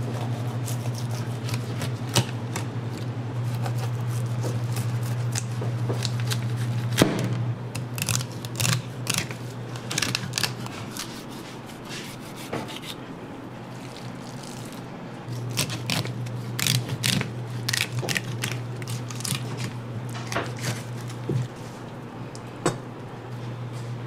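Knife cutting and scraping through a whole salmon on a plastic cutting board: irregular sharp scrapes and knocks, thickest in the middle and again later, over a steady low hum that stops for a few seconds partway through.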